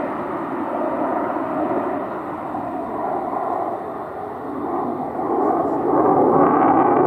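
Jet noise from an F-22 Raptor in flight, a continuous rushing rumble that swells louder near the end.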